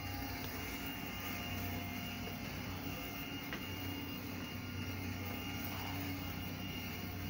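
Steady mechanical hum inside a Choshi Electric Railway 2001-series electric train car: a low drone with a faint high whine over it.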